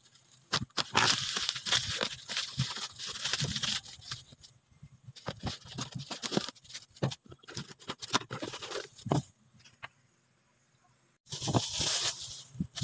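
Plastic bag crinkling and rustling as it is pulled off a cardboard box, in bursts with scattered clicks and taps, and a short silent gap near the end.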